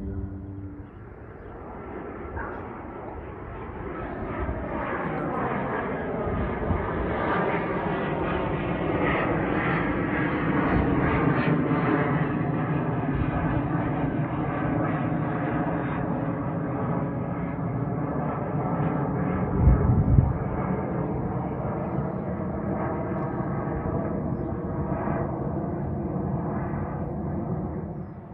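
Jet aircraft engines climbing out after takeoff and passing overhead: the sound builds over the first few seconds, is loudest as the plane goes over, and then fades near the end, its engine tones sliding lower in pitch as it moves away. There is a brief loud low thump about twenty seconds in.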